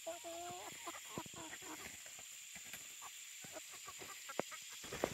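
A flock of chickens clucking softly as they forage, with one drawn-out call right at the start and quick short clucks through the rest.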